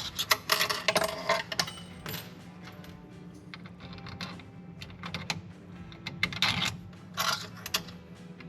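Light clicks and clatter of small plastic printer parts and screws being handled and fitted together, coming in clusters: a busy run in the first second and a half, a single click near two seconds, and more around five to seven and a half seconds in.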